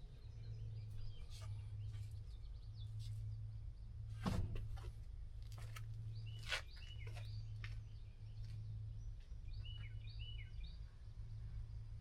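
A steady low hum under scattered light clicks and knocks, with one louder knock about four seconds in. A bird chirps a few short notes about six seconds in and again near ten seconds.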